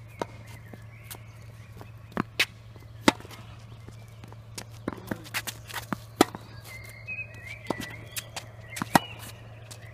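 Tennis ball struck by rackets and bouncing on a hard court during a rally: sharp, irregular pops, the loudest about 3, 6 and 9 seconds in, with lighter taps between.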